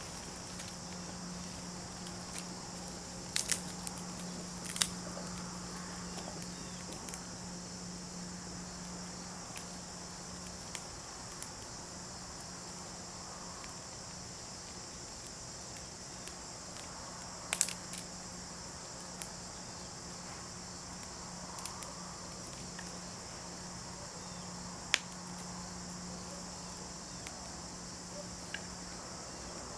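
Steady drone of crickets and other insects with a low hum underneath, broken a few times by sharp snaps and crackles from the twigs of a small kindling fire as it is fed and catches.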